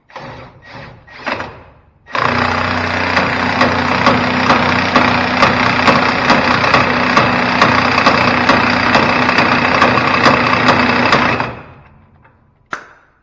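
Cordless impact wrench hammering steadily on a truck's front tie rod. It starts about two seconds in and runs for roughly nine seconds before stopping, followed by a single sharp click.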